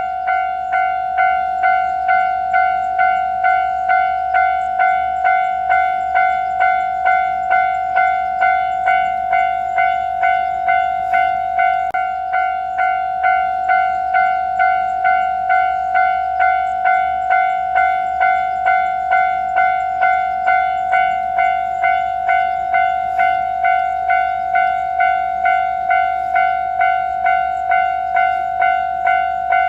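Japanese level-crossing warning bell clanging at an even pace of about one and a half strokes a second, each ring fading before the next. This is the crossing alarm warning of an approaching train.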